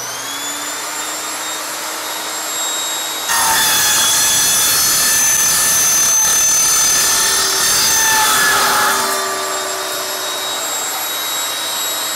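Evolution Rage 5-S table saw motor and blade spinning up to speed and running free. From about three seconds in, the blade cuts through 2-inch aluminium tubing for about six seconds, a loud harsh rasp over the steady whine. It then runs free again. The saw goes through the tube easily without slowing.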